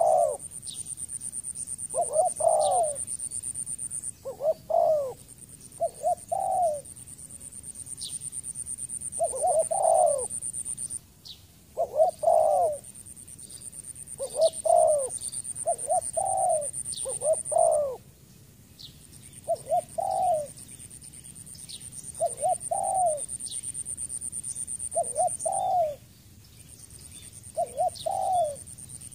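Spotted dove cooing over and over, in short phrases of two or three notes every couple of seconds. High thin chirps from small birds and a steady high buzz that breaks off every several seconds run under it.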